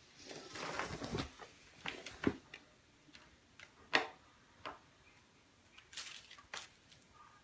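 Kittens playing: a rustle in the first second, then scattered light taps and clicks.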